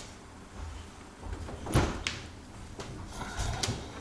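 Knocks and bumps of someone climbing into a boat: one sharp knock about two seconds in, then a few softer bumps, over a low rumble.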